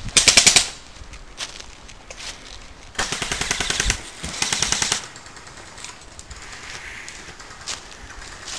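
Airsoft gun firing on full auto in three rapid rattling bursts: a short one at the start, then two more back to back about three seconds in.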